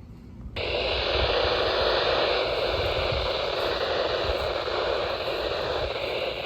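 Radio static: a steady hiss switches on abruptly about half a second in and holds at one level, with a low rumble underneath.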